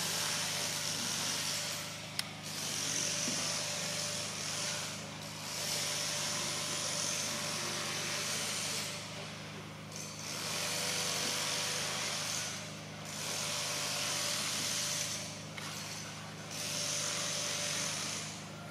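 Cicadas buzzing in about six swells of a high, hissing drone, each two to three seconds long with short dips between them, over a steady low hum.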